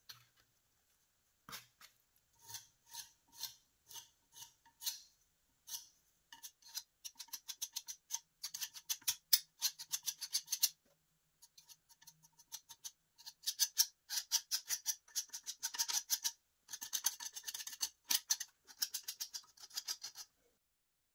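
Putty knife scraping through filler paste. First come separate strokes about twice a second as the filler is mixed on cardboard, then long runs of quick scraping strokes as it is spread and smoothed over the metal vise body.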